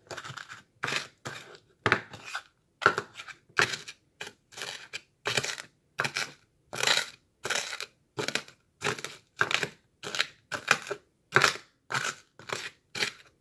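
Metal spoon crushing Blue Heat Takis and Flamin' Hot Cheeto Puffs in a bowl: a steady run of crunches, a little under two a second.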